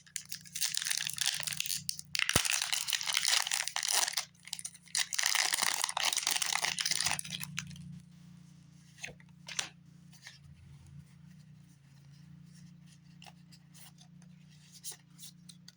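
Foil wrapper of a Pokémon TCG booster pack being crinkled and torn open, crackling for about seven seconds, then quiet rustling and a few light clicks as the cards are handled.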